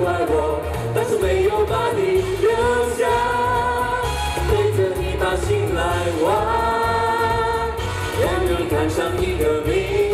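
Pop singers singing a Chinese pop song live through handheld microphones over amplified backing music with a pulsing bass beat.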